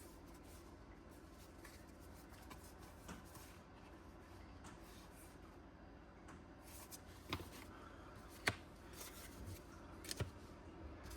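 Faint rustling of Pokémon trading cards and booster-pack wrappers being handled, with a few light clicks in the second half.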